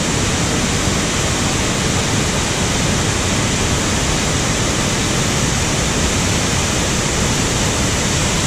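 Cascada del Estrecho, a waterfall on the Arazas river: a loud, steady rush of falling water.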